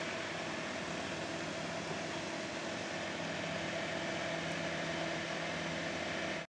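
Steady hiss of background noise with a faint low hum under it, like a running fan or motor; no distinct knocks or rustles stand out.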